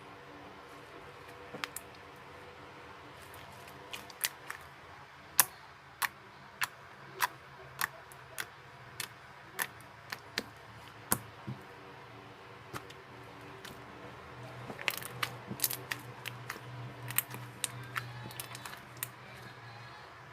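Wood-glue slime mixed with playcorn being handled, giving a string of sharp clicks and pops, about one or two a second at first, then a quicker, denser run near the end.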